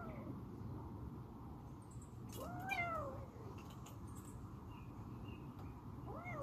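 A cat meowing: one long meow that rises and falls in pitch about two and a half seconds in, and another starting near the end.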